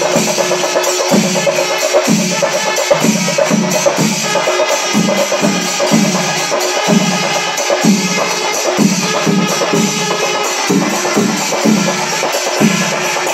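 Kerala chenda melam: chenda drums played in a loud, steady repeating rhythm, with ilathalam hand cymbals clashing along.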